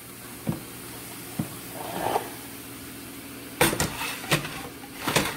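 Kitchen handling noises: a few light knocks, then several louder clatters of containers and utensils being picked up and set down on the counter, over a faint steady hum.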